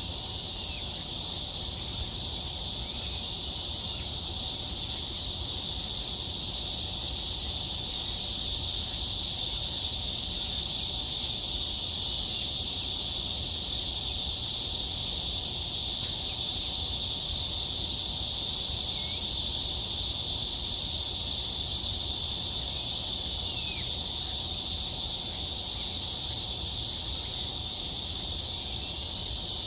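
Chorus of cicadas buzzing, a continuous high-pitched drone that holds steady throughout.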